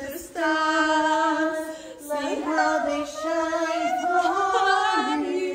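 A woman singing unaccompanied, holding long, drawn-out notes with a slight bend in pitch between them.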